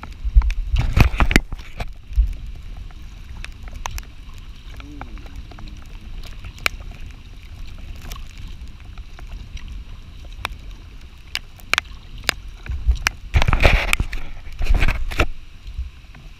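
Gusts of wind buffeting the bow-mounted camera's microphone on a kayak, heaviest near the start and again near the end, over a steady hiss of the river and scattered sharp ticks, as a thunderstorm moves in.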